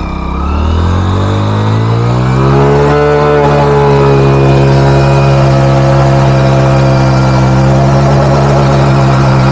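Hero Splendor motorcycle's single-cylinder engine revving up over about two seconds, then held steady at high revs, while the bike is bogged down in mud and grass.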